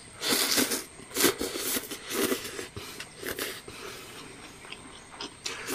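Someone slurping instant noodles off chopsticks: a run of short noisy slurps, the longest in the first two seconds, then shorter ones and another near the end.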